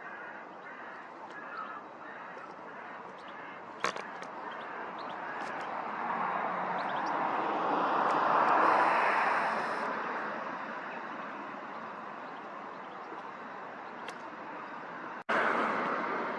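Jet airliner passing: broad engine noise swells to a peak about halfway through and then slowly fades away.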